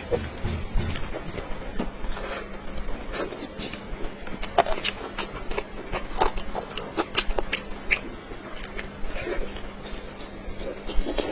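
Close-miked eating sounds of a person chewing and biting into cola chicken wings: irregular wet smacks and clicks, several a second.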